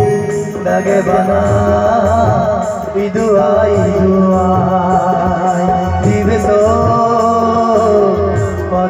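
Live band music with a man singing into a microphone, backed by drums and guitar with a steady beat.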